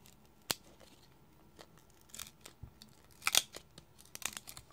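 Thick trading-card stock being worked and torn open by hand along a rip card's perforations: scattered sharp clicks and crackles, loudest in a short cluster a little over three seconds in.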